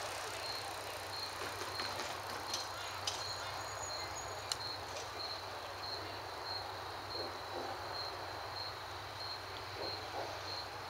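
A cricket chirping steadily, a short high chirp about twice a second, over faint outdoor background noise with a few light clicks.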